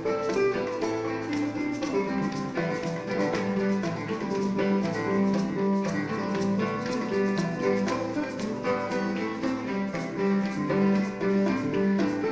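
Live band playing an instrumental passage, with a walking bass line under guitar and other instruments.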